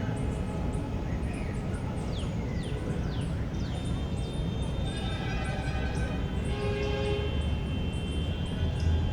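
Park ambience: a steady low rumble of distant traffic under many short, high bird chirps, with a few quick falling bird calls a couple of seconds in. About five seconds in, a drawn-out tone of several steady pitches joins for a few seconds.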